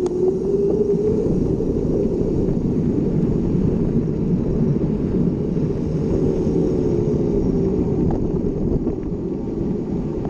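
Mountain bike being ridden along a trail: wind rushing over the camera's microphone and tyre rumble make a steady, loud, low noise.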